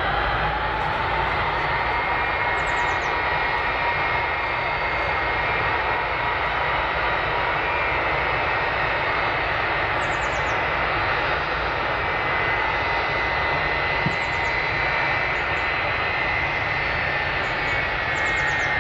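Boeing C-17 Globemaster III's four Pratt & Whitney F117 turbofan engines at takeoff power: a loud, steady jet roar, with a whine that rises in pitch in the first second or so and then holds level.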